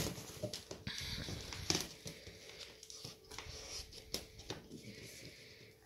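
Scattered taps, rubs and rustles of small hands handling an inflated rubber balloon and pressing stick-on card pieces onto it.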